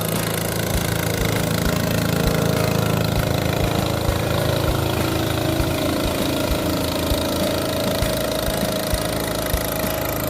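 Small engine of a perahu ketek river boat running steadily, a continuous motor drone with a low thudding beat.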